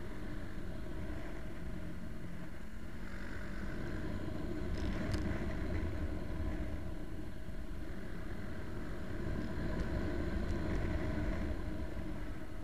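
Motorcycle riding along at road speed: engine running under heavy wind noise on the bike-mounted camera, swelling a little twice.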